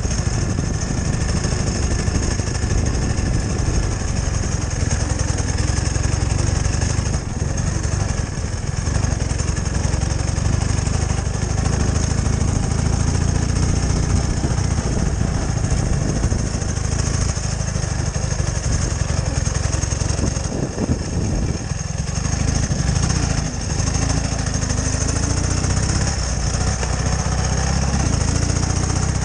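Ural sidecar motorcycle's flat-twin engine running steadily while riding along a rough dirt track, a continuous low drone.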